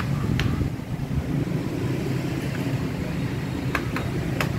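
Plastic snap clips on an ASUS laptop's keyboard deck clicking sharply as the case is pried apart. One click comes about half a second in, and two more come close together near the end, over a steady low background rumble.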